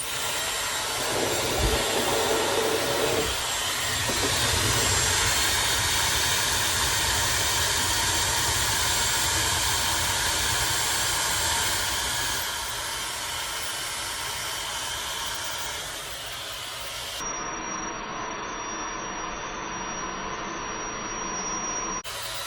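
Dyson Supersonic hair dryer switched on and running: a loud, steady rush of air with a thin high whine. It drops a little in level about twelve seconds in, and again a few seconds later.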